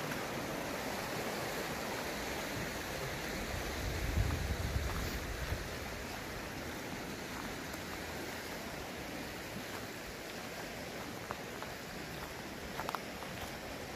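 Steady rush of flowing river water, with a brief low rumble about four seconds in.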